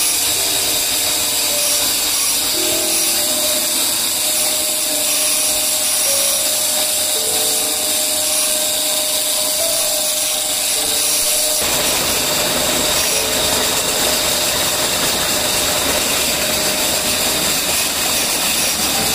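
Large 40 hp three-phase vertical motor driving a pump, switched on and running with a steady, loud mechanical whine. About halfway through, the sound turns into an even rushing noise, the water pumped out of the delivery pipe gushing into a concrete tank.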